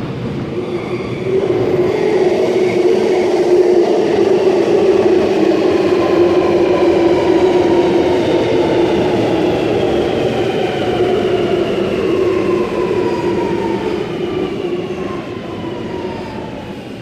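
Sydney Metro Alstom Metropolis driverless train pulling into the platform and slowing to a stop. Its electric traction drive whines in several tones that glide steadily down in pitch as it brakes, and the overall sound swells early and then fades.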